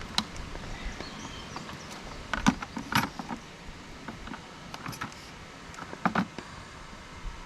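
Scattered clicks and knocks of hard tools being handled and set down, loudest about two and a half seconds in, with another pair of knocks about six seconds in.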